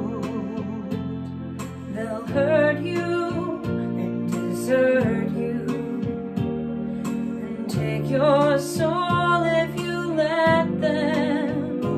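Two women singing a song in turn, with wavering sung notes over steady instrumental accompaniment.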